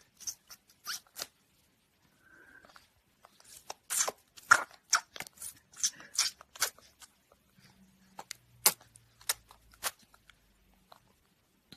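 A baby sucking and gnawing on her own toes: a run of short wet smacking and sucking clicks at an uneven pace, thickest in the middle.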